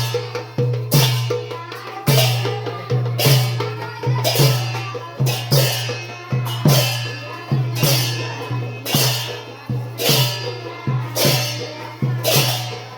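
Sylheti dhamail folk music driven by percussion: a deep, booming drum beating about twice a second, each beat with a bright clattering strike on top.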